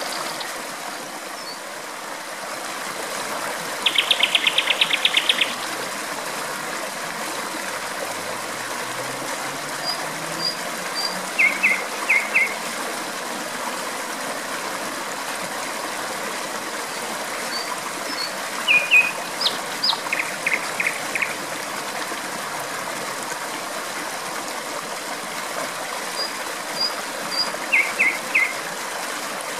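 Steady rush of flowing water, with a nightingale singing four short bursts of rapidly repeated high notes spread through.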